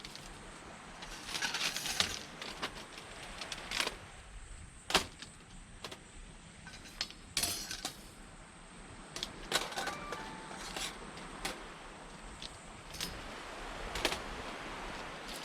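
Camp gear being handled: scattered short clinks, knocks and rustles, over a steady low wash of surf from the shore.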